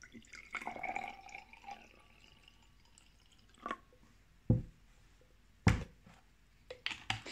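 Iced tea poured from a plastic bottle into a glass champagne flute, the gurgle rising in pitch as the glass fills over about two seconds. Then two loud knocks on the tabletop as the bottle is set down.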